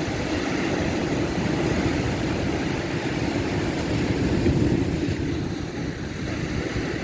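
Sea surf at high tide, waves breaking and washing onto the beach in a steady rush that swells slightly about four seconds in.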